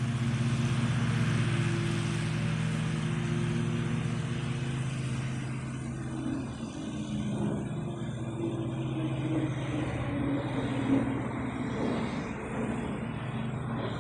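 Gulfstream V business jet giving off a steady low droning hum made of several pitched tones over a rushing hiss. The hiss thins out after about five seconds while the hum carries on.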